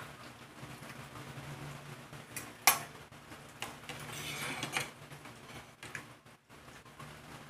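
Metal knife and fork clinking and scraping on a ceramic plate as they are set down side by side. One sharp clink about two and a half seconds in is the loudest, followed by about a second of scraping and light clinks.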